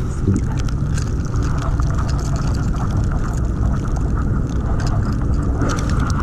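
Steady wind rumble buffeting the microphone, with scattered light ticks of rain striking the jacket and camera.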